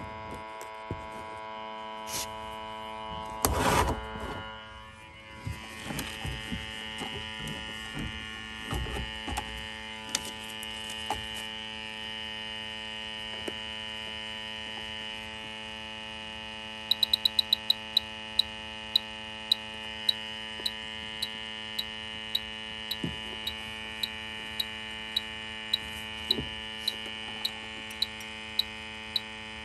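H10 heated-sensor refrigerant leak detector (Bacharach) running with a steady electronic hum and whine while it warms up, with a few handling knocks in the first ten seconds. Past the halfway point it starts ticking: a quick run of ticks, then a steady slow tick about one and a half times a second as its probe is brought to the evaporator coil.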